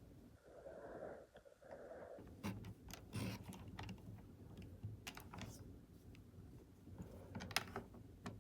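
Faint, irregular clicks and taps over a low steady hum.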